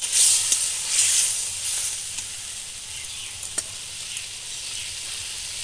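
Potato wedges sizzling as they fry in spiced oil and masala in a metal kadai, being sautéed in the masala while a spatula stirs and scrapes through them. The stirring strokes are loudest in the first two seconds, then a steadier, quieter sizzle with a few small clicks.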